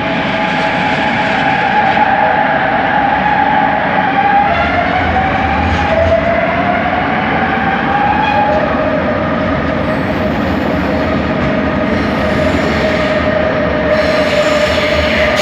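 Bombardier Innovia ART 200 metro train running, heard from inside the car: steady running noise with a linear-induction-motor whine whose pitch glides up and down, then holds steady.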